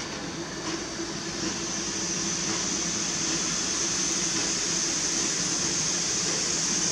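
Steam hissing steadily from a Pt47 2-8-2 steam locomotive, growing slowly louder.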